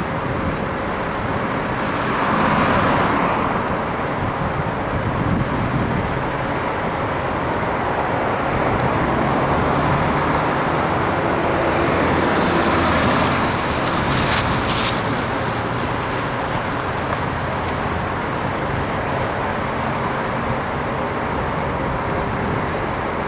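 Road traffic: a steady hum of traffic with cars passing close by, one about two seconds in and another swelling and fading between about nine and fifteen seconds in.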